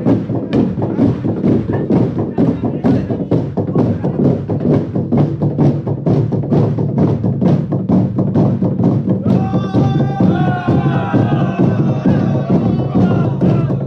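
Many long wooden pestles pounding together on a hollow wooden trough in a fast, steady beat of about three to four strokes a second. About nine seconds in, several voices join in together over the pounding.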